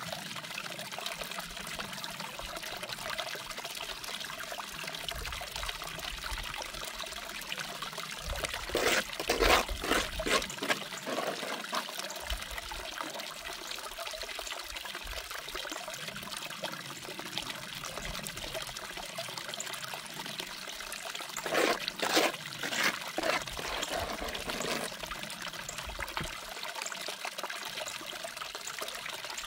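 Water running steadily down a small mini-sluice over a green mat as wet paydirt is fed onto it from a bowl. Two clusters of short, sharp scraping and splashing sounds stand out, about a third of the way in and again about three quarters of the way in, as paydirt is scooped and dropped into the flow.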